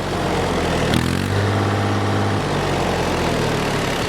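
Tractor's diesel engine revved on the throttle, without the turbo whistle yet fitted. The pitch rises about a second in, holds, and falls back toward idle after about two and a half seconds.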